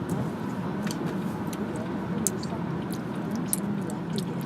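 Biting off and chewing a piece of a giant gummy bear: irregular small clicks and smacks of the mouth over a steady low hum.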